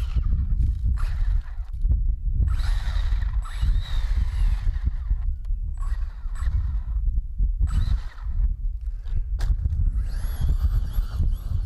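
Feiyue FY-06 6WD radio-controlled rock racer's electric drive whining in repeated throttle bursts, the whine rising and falling, over a heavy low rumble with irregular thumps.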